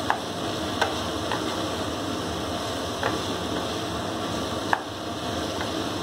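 Mushrooms and onions frying in oil in a nonstick kadai, stirred with a wooden spatula: a steady sizzle with a few light knocks of the spatula against the pan, the sharpest about three-quarters of the way through.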